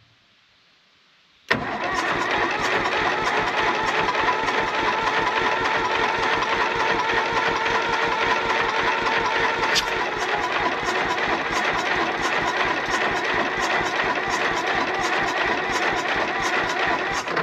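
Valmet 500 tractor engine being cranked by its starter for about fifteen seconds with a steady rhythmic chug, without catching. It starts suddenly and stops near the end. It is a long-stored engine that won't fire; fuel supply is suspected.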